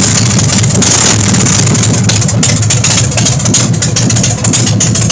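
Big Dog Ridgeback motorcycle's V-twin engine idling loudly and steadily, with a rapid, even run of firing pulses.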